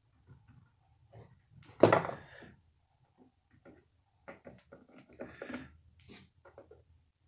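Scattered small clicks and taps of metal parts and a screwdriver as a screw is fitted into the chainsaw's oil pump, with one louder clack about two seconds in.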